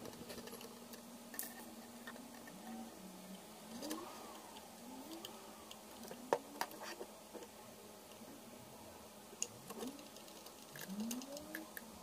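Small screws being driven by hand with a screwdriver into the plastic base of a hologram fan: faint, repeated short rising squeaks as each screw turns and tightens, with a few light clicks.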